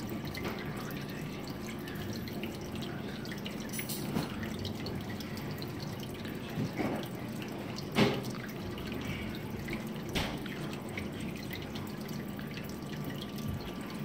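Light fingertip taps on a thermostat's touchscreen buttons, a few short clicks spaced seconds apart, the loudest about eight seconds in, over a steady low room hum.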